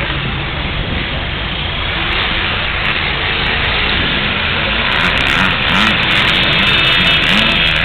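A motor vehicle engine running steadily, a little louder in the second half.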